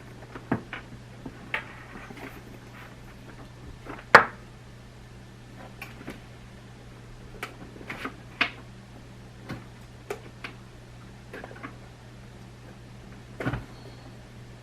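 Scattered clicks and knocks of tools and small parts being handled inside an opened Mac mini, with one louder knock about four seconds in, over a steady low hum.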